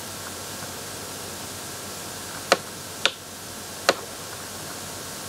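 Three sharp clicks, a little past halfway and under a second apart, over a steady hiss of microphone noise.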